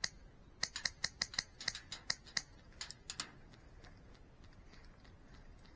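Airsoft fire: a quick, irregular string of about a dozen sharp snapping clicks over roughly two and a half seconds, then only faint scattered clicks.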